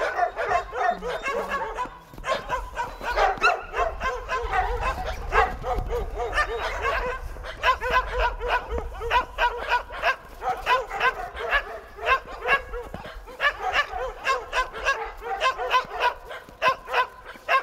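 Several dogs barking and yipping, a steady run of short barks several a second that hardly lets up.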